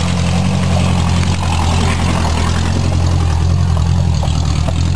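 Lifted off-road Subaru's flat-four engine running steadily at low revs, close by, as the car crawls over rocks.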